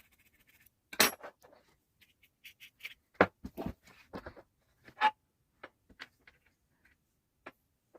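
Irregular sharp clicks, taps and short scrapes of small tools and wire being worked by hand, as a component lead is cleaned ready for soldering.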